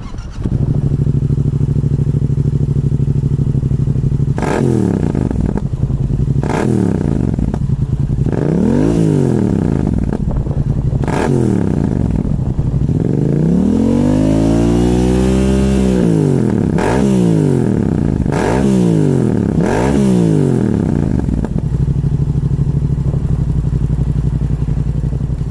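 Yamaha MT-07's parallel-twin engine running through a LeoVince GP Duals full exhaust system with the baffles out. It idles steadily, is blipped sharply four times, then revved up and held for a few seconds, then blipped three more times, and settles back to idle near the end.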